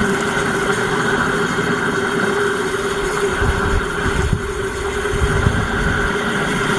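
A motor running steadily with an even hum, and a rougher low rumble swelling in from about halfway through.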